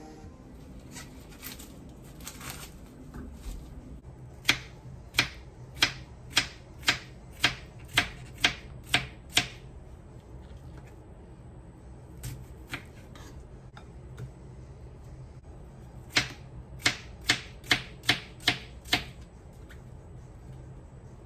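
Kitchen knife slicing a cucumber on a wooden cutting board: sharp knocks of the blade striking the board, a run of about ten at roughly two a second, a pause, then a run of about seven more.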